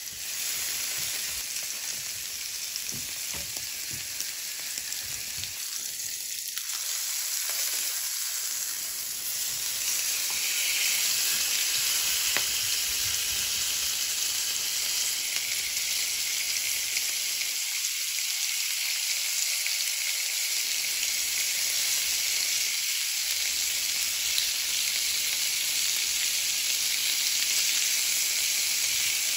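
Wagyu sirloin steak sizzling on a hot ridged electric grill plate, the fat frying in a steady hiss that grows louder about ten seconds in.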